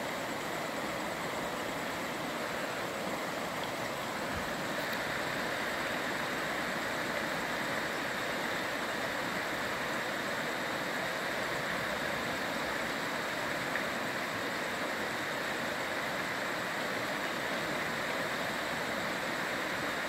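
River water rushing steadily over rocky rapids in the Chalakudy River.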